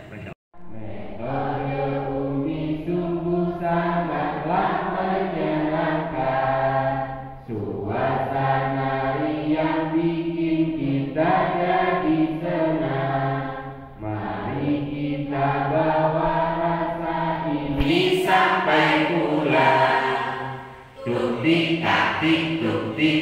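A roomful of people singing together, in long phrases with brief pauses between them.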